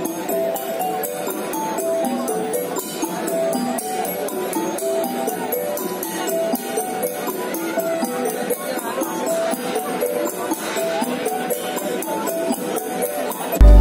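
Music with fast, steady shaker-like ticking percussion and a bouncing melody of short notes, without a bass line. A loud, deep bass note comes in right at the end.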